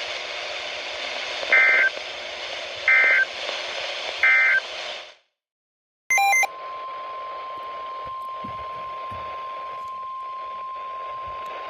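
Emergency Alert System data bursts over a weather radio's static hiss. Three short two-tone squawks about a second and a half apart mark the end of a flash flood warning. The sound cuts out for about a second, and after a brief loud blip a steady single-pitch warning alarm tone comes in over the hiss, announcing the next warning.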